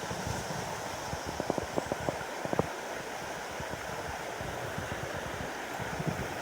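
Mountain river rushing steadily over rocks, with a few short splashy ticks about one and a half to two and a half seconds in.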